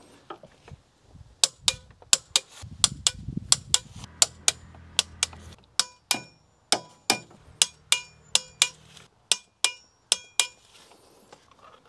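Ratcheting head of a torque wrench clicking as spark plugs are tightened into a BMW S65 engine: a string of sharp metallic clicks, about two a second, each with a brief ring.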